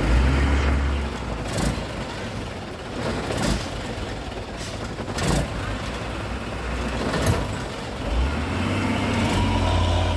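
Truck engine running with a low rumble that swells near the end, with several sharp knocks or rattles through it.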